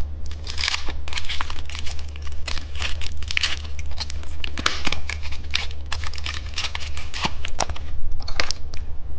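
Plastic candy wrappers being crinkled and torn open in quick, irregular crackles, over a steady low hum.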